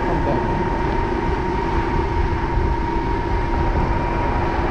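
Motorcycle cruising at a steady speed: wind and road noise on the rider's microphone, with a steady whine held throughout.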